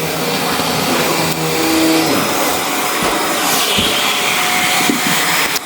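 Vacuum cleaner running steadily, cleaning dirt off a rug.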